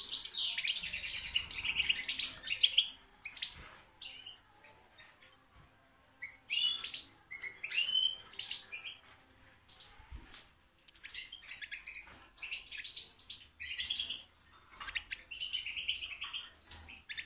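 Caged European goldfinches singing: rapid, high twittering phrases, loudest over the first three seconds. The song drops away briefly, then returns in bursts.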